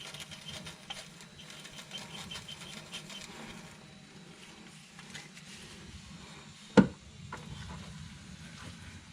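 Old differential gear oil being emptied from a hand suction gun into a small measuring container: faint pattering and small clicks, with one sharp knock about seven seconds in.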